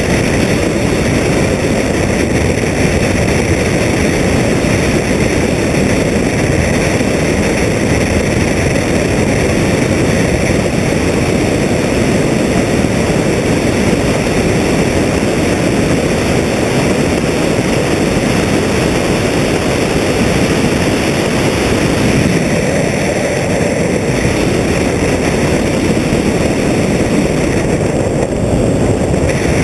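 Comet FK12 biplane in flight: its engine and propeller running, heard under heavy wind rushing over a wing-mounted microphone, as one steady drone.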